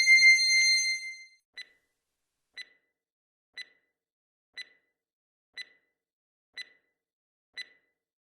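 An electronic chime tone that fades out about a second in, then a countdown timer's short, faint ticks, one each second.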